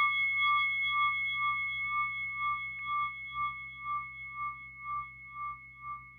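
A struck bell ringing out and slowly fading, its lowest tone pulsing about twice a second.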